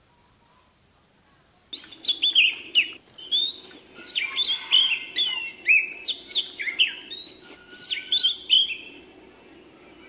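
Oriental magpie-robin singing: a rapid, varied string of loud whistles, trills and quick pitch glides that starts suddenly about two seconds in and stops near the end.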